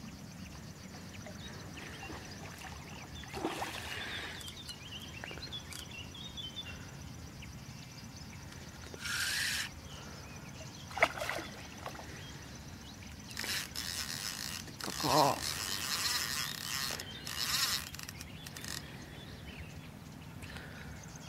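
Sounds of playing a hooked grass carp on rod and reel: short bursts of reel noise and splashing in the water. Most of the bursts come in the second half, between long stretches of steady background.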